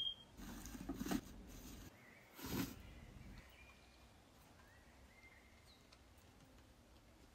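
Handling noise from a handmade wooden tissue box cover built from Jenga blocks as it is lifted and turned in the hands: rustling with a few small knocks in the first two seconds and one louder bump about two and a half seconds in, then quiet.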